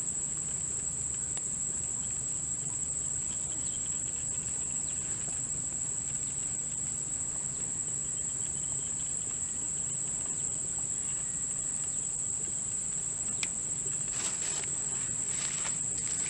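Insects calling in a steady, unbroken high-pitched trill, with a few short scuffing sounds near the end.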